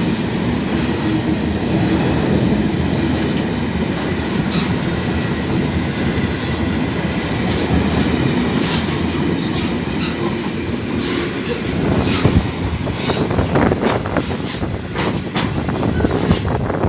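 A train running past the platform: a steady rumble of wheels on rail, with a series of clicks over the rail joints in the second half.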